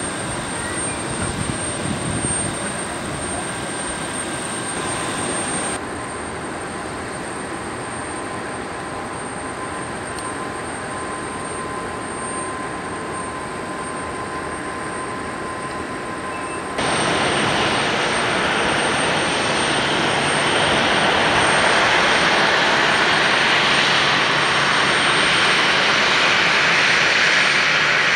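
Airliner jet engine noise in three edited parts. First a departing ANA Boeing 787 climbs away. Then an ANA Boeing 737-800 rolls out after landing. About two-thirds of the way through, a louder, steady engine sound comes in: the same 737's CFM56 turbofans at taxi power as it heads in toward the stand.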